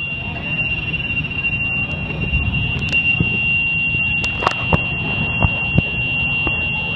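Mircom alarm signal sounding one steady, unbroken high-pitched tone over a low rumble with a few sharp knocks. The uploader guesses it warns people that the jet bridge to the plane is moving.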